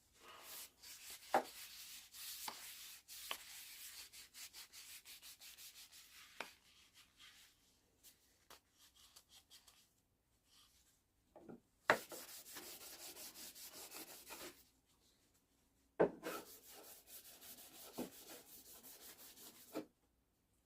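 Wooden tack-hammer handle being worked by hand with rapid back-and-forth strokes, a dry scratchy hiss, in three spells with short pauses between, and a few light knocks.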